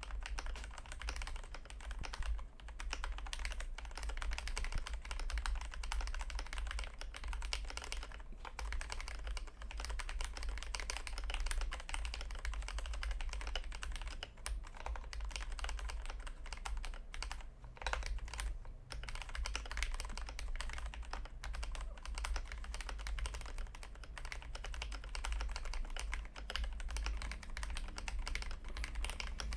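Continuous typing on a Glorious GMMK Pro mechanical keyboard with a polycarbonate plate, factory-lubed Gateron Cap Milky Yellow linear switches and XDA PBT keycaps, on a thick desk mat. A dense stream of keystrokes with a few brief pauses, over a steady low hum.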